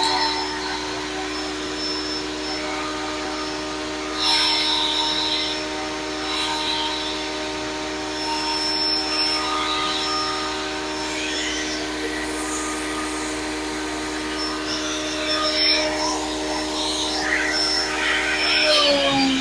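A Grizzly 8-inch jointer-planer combo running steadily with a constant motor whine, with bursts of rougher noise on top at several points. The pitch dips near the end.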